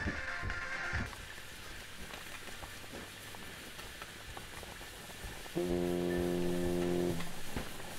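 Thin, tinny music that stops about a second in, then a quiet stretch with a few faint low thuds, and near the end a single low note held steady for about a second and a half.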